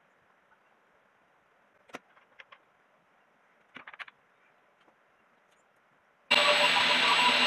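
A few light clicks and knocks of a folding ruler and wooden sled being handled, then about six seconds in a table saw switches on and runs loud and steady.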